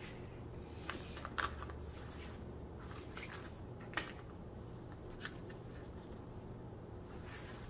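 Faint rustling with a few light ticks as a soft tape measure is unwound and laid across a diamond painting canvas in its crinkly plastic film.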